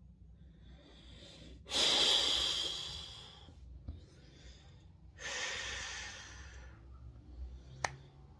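A person breathing out heavily close to the microphone, twice, each breath about a second and a half long. A single sharp click near the end.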